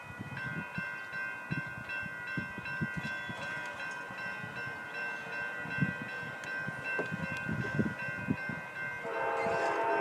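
Safetran grade-crossing bell starts ringing just after the warning lights begin to flash and keeps up a steady ringing. About nine seconds in, the horn of the approaching Amtrak passenger train joins it and grows louder.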